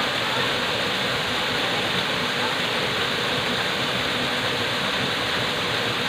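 Waterfall pouring over rock into a shallow pool: a steady, even rush of falling and splashing water.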